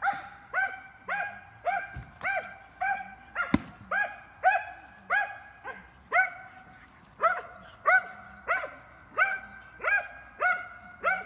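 Belgian Malinois barking steadily and rhythmically, about two barks a second, the sustained barking of protection work aimed at the helper. A single sharp crack sounds a few seconds in, among the barks.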